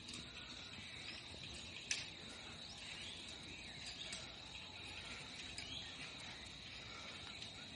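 Steady high-pitched insect drone, typical of crickets, with scattered short chirps and a single sharp click just under two seconds in.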